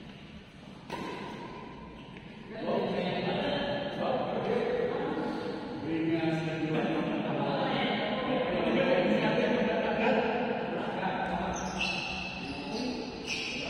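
Drawn-out, chant-like voices that start about three seconds in and carry on for most of the stretch, over a badminton rally with racket hits on the shuttlecock. Short high squeaks of sneakers on the court floor come near the end.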